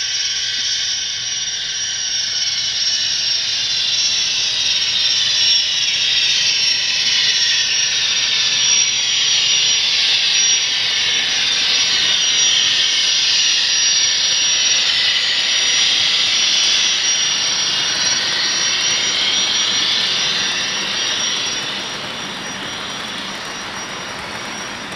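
Sound-decoder turbine sound from a ScaleTrains model of the Union Pacific 8,500 hp gas turbine locomotive: an ear-piercing, jet-like whine and rush with a steady high tone on top. It is loudest as the locomotive passes and drops off near the end as it moves away.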